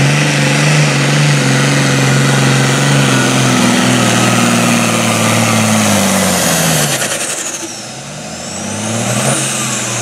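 Super Farm class pulling tractor's diesel engine running flat out under load, then its revs dropping away about seven seconds in as the pull ends, rising briefly once more and falling again. A high whistle rises and falls along with the revs near the end.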